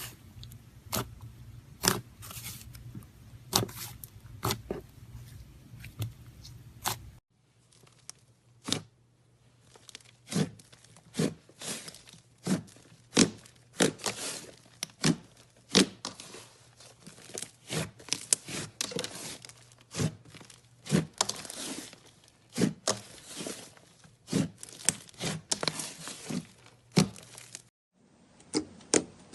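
Slime being squeezed and stretched by hand, giving a run of sharp sticky pops and crackles, several a second.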